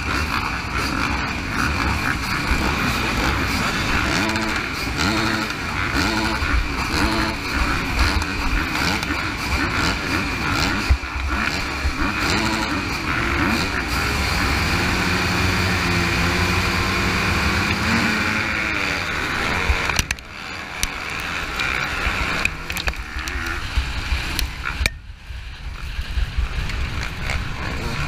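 A start line of motocross bikes revving together, with many engine notes rising and falling at once. About twenty seconds in, the sound changes abruptly to the pack launching, with the helmet-camera rider's own bike accelerating and wind on the microphone.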